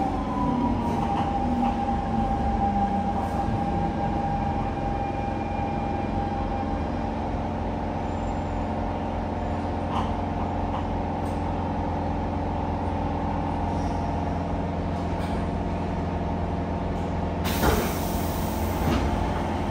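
Siemens C651 metro train's traction motor whine falling in pitch as the train brakes to a stop, then the steady hum of the train at a standstill. Near the end comes a loud hiss of released compressed air lasting about a second and a half.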